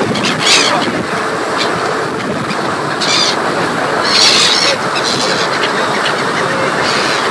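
Gulls calling in short cries, about four times, over the steady noise of the ferry's engine and wake.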